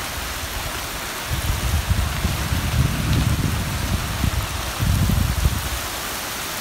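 Heavy tropical-storm rain pouring steadily onto trees and a shingle roof, an even hiss. Low wind rumble on the microphone comes in about a second in and returns around five seconds.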